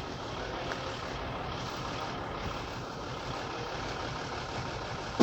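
Diesel train idling while stopped at the station: a steady, even engine rumble.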